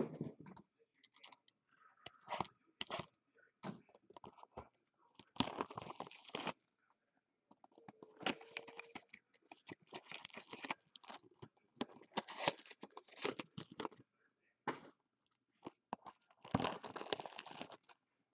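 Foil trading-card packs and a cardboard hobby box being handled, crinkling and rustling in irregular bursts with scattered clicks. There is a sharp knock right at the start.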